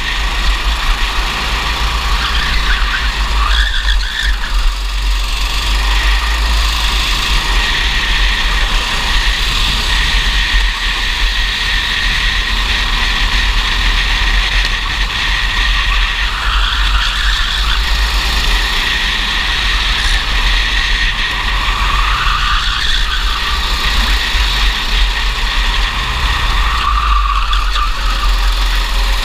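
Racing kart's engine heard from onboard, running hard and rising and falling in pitch several times as the kart slows for corners and accelerates out of them. A steady low rumble sits underneath.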